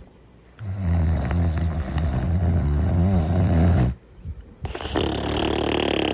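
A cartoon character snoring. A long, loud, low snore starts about half a second in and lasts about three seconds; after a short pause a second, higher and breathier snore follows.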